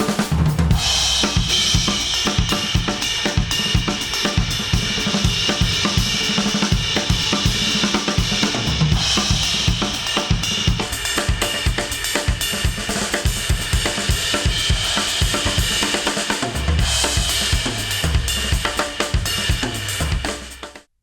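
Instrumental music with a full drum kit (kick, snare, hi-hat and cymbals) playing through studio headphones and picked up by an artificial-ear measurement microphone. It cuts off abruptly near the end.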